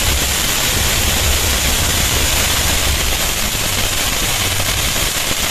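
Ground fountain firework spraying sparks with a steady, loud hiss.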